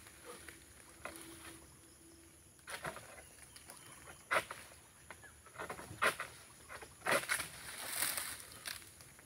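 Long-pole pruning sickle scraping and hacking at a dry oil-palm frond in about five separate strokes, with a faint steady high-pitched hum behind.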